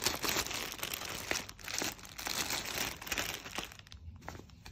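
Clear plastic bag crinkling and crackling as a T-shirt is pulled out of it, dying down about three and a half seconds in.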